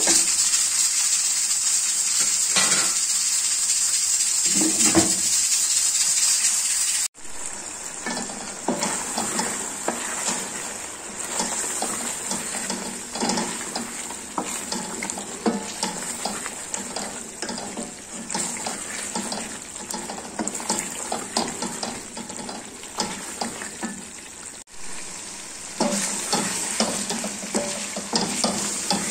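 Liver curry sizzling in a stainless steel pot while a spatula stirs it, scraping the pot with many small clicks over a steady frying hiss. The sound is louder for the first several seconds, breaks off abruptly, and grows louder again near the end.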